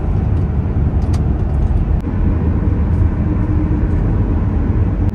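Car driving at speed: a steady low rumble of road and wind noise.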